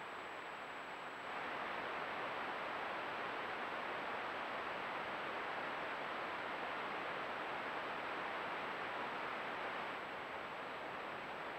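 Steady hiss of a trail camera's microphone, with a faint, constant high-pitched whine above it. The hiss gets louder about a second in and drops back a little near the end, as the footage cuts between camera clips.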